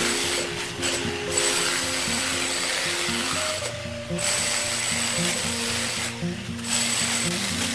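Background music, heard under a loud rasping noise that runs in stretches of about two seconds, with brief pauses between them.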